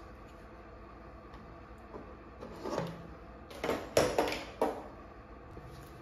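Handling noise as a digital multimeter and its test leads are picked up and moved off a wooden tabletop: a short scrape about halfway through, then a few knocks and scrapes over the next second or so.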